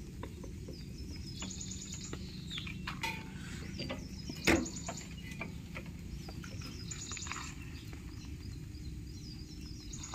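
A bird calling repeatedly: a short, fast, high trill every two to three seconds. Underneath are light clicks and one sharp knock about four and a half seconds in, from the V-belt being worked by hand onto the tiller's pulleys.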